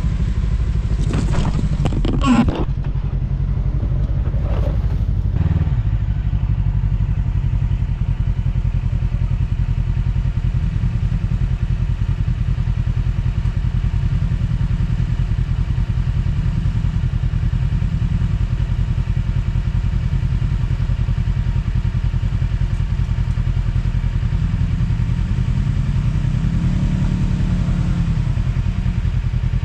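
Side-by-side UTV engine running steadily at low revs while crawling a rough trail, with a few clatters and scrapes in the first seconds. Near the end the revs rise and then fall back.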